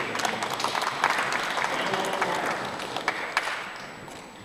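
Congregation applauding, a dense patter of many hands clapping that dies away near the end.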